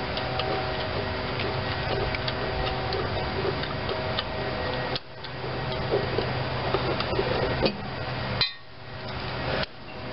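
Light metallic clicks and knocks as hands handle a Delco-Remy starter-generator on its tractor mounting bracket, over a steady hum. The sound drops out suddenly about five seconds in and again near the end.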